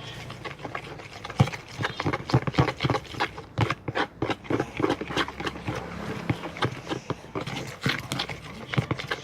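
A spoon stirring a thick homemade slime mixture of white glue and toothpaste in a container, making irregular clicks and knocks against the bowl.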